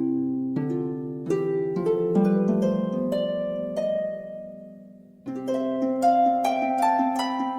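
Background music: a harp playing plucked notes that ring and fade, with a fresh run of notes starting about five seconds in.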